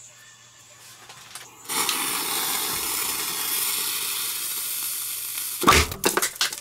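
Table confetti firework: its fuse hisses steadily for about four seconds from about two seconds in, then the tube fires with one sharp bang near the end, followed by a few quick ticks.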